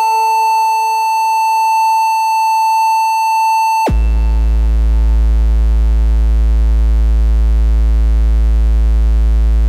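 Output of an LM13600 OTA single-amplifier voltage-controlled oscillator: a steady high electronic tone that drops abruptly, about four seconds in, to a low buzzy tone near 55 Hz, which holds steady. The waveform is a triangle wave with small step discontinuities at its peaks.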